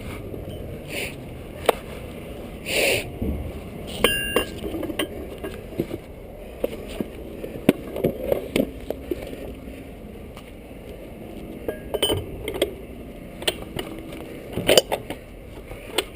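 Scattered, irregular metal clinks and knocks of equipment being handled, with no jackhammer running.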